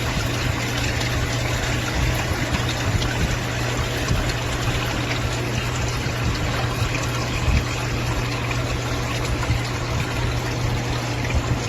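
Water running steadily, trickling and pouring, over a constant low hum.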